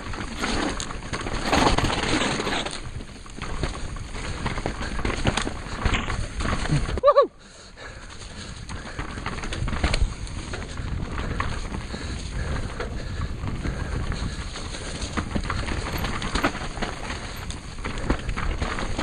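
Mountain bike ridden fast down a dirt forest trail: tyres rumbling over the ground, with the bike rattling and knocking over roots and bumps. About seven seconds in there is a short pitched squeal, then the noise briefly drops away before it builds again.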